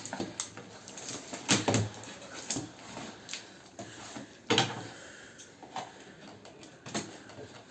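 An electric heater's packaging being handled and worked open: irregular knocks, clicks and scrapes, the sharpest about one and a half and four and a half seconds in. The packing is tight and hard to open.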